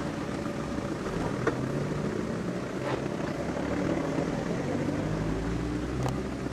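A motor vehicle's engine running steadily, its low hum growing stronger about four seconds in, with a few faint clicks.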